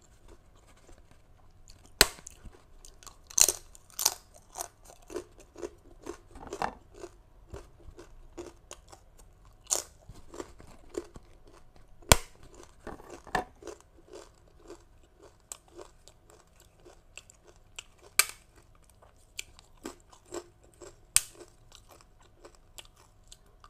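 Close-up crunchy chewing of a crisp sesame rice cracker (bánh đa), with a sharp snap every few seconds as pieces are broken off.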